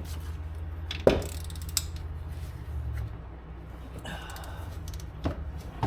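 A few sharp metallic knocks and clatters of tools or car parts being handled, the loudest about a second in, over a low steady hum.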